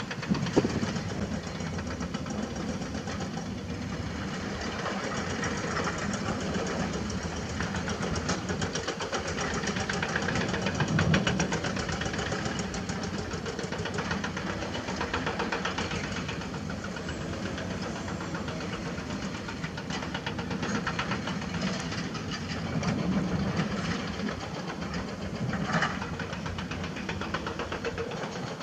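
Heavy diesel engines of hydraulic excavators and dump trucks running together while the excavators dig and load, swelling louder now and then.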